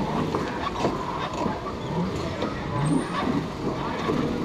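Go-kart motors running with echoing hall noise in an indoor kart track, with short rising tones about once a second.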